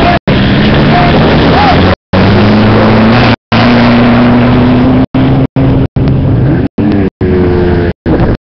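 Off-road race car engines running loud and close, one engine's pitch rising slowly through the middle and another revving up near the end. The sound cuts out for a moment about ten times.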